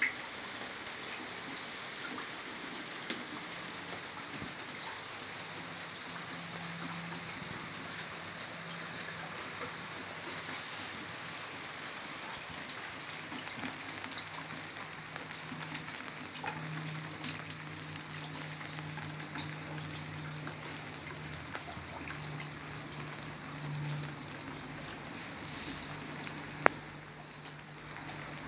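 Rain falling steadily on a paved courtyard, with scattered sharp ticks of single drops landing and one louder tap near the end. A low steady hum runs under it from about halfway.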